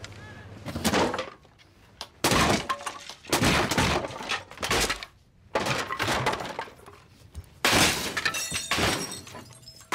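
A room being wrecked: furniture knocked over and objects thrown, a string of loud crashes with glass breaking, about a second apart.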